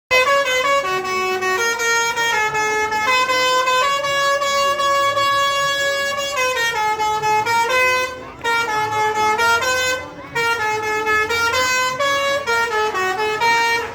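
Telolet bus horn, a set of musical air horns playing a tune: held notes stepping up and down in pitch, with two short breaks about eight and ten seconds in.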